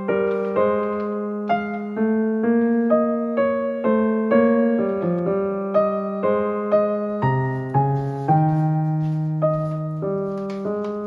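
Background piano music: a gentle melody of notes struck a few times a second over held lower notes.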